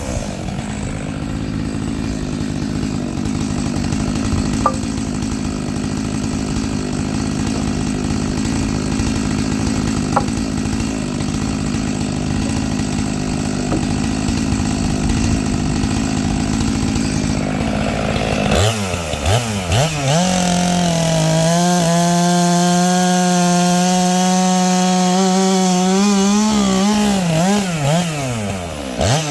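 Stihl MS 462 two-stroke chainsaw with a 25-inch bar and ripping chain, running at full throttle and cutting firewood along the grain. For most of the time the engine is held down under load. After about 18 seconds it revs back up to a high, wavering whine, dipping briefly near the end.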